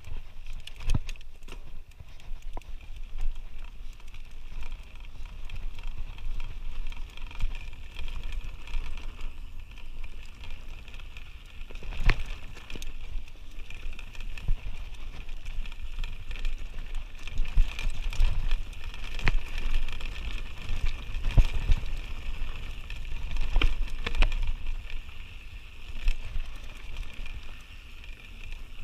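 Canyon Spectral mountain bike riding down a rough dirt singletrack, picked up by a camera mounted on the rider or bike: a constant low rumble and hiss of the tyres on dirt and gravel, with frequent sharp knocks and rattles from the bike over bumps and stones.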